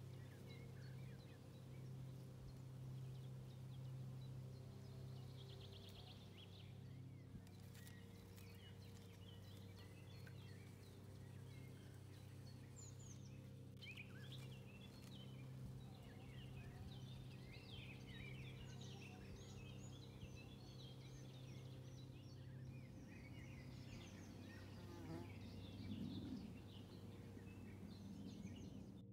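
Faint chirping of several small birds, sparse at first and busier from about halfway through, over a steady low hum.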